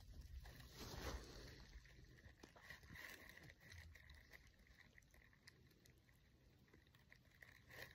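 Near silence: faint outdoor ambience with a few small, scattered clicks and rustles.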